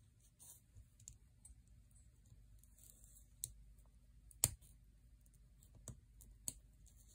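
Faint, scattered clicks of small metal trigger parts (a Timney trigger's housing, wire spring and clip) being handled and fitted by hand, the sharpest click about four and a half seconds in.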